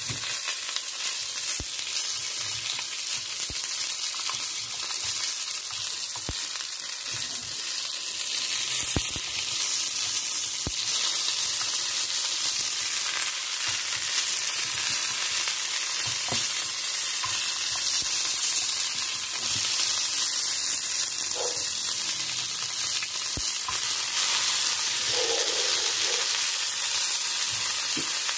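Fish fillets frying: a steady sizzle with scattered small pops and ticks.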